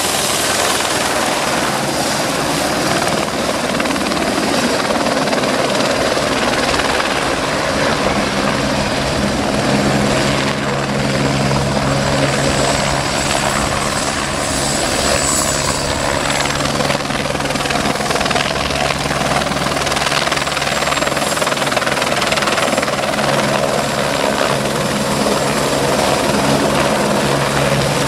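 AS355 Ecureuil 2 twin-engine helicopter hovering and flying low nearby: steady rotor and turbine noise with a low hum that grows stronger in the middle.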